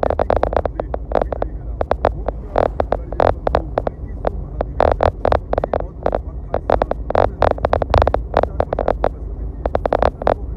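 Background music: a beat with a steady deep bass and quick, dense percussive hits.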